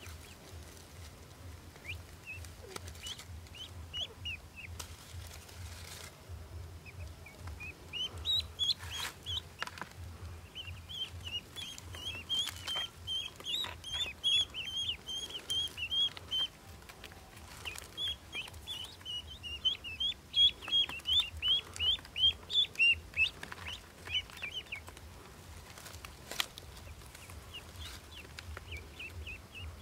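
Pekin ducklings peeping: quick series of short high chirps, thickest and loudest through the middle and thinning out near the end, with a few brief rustles.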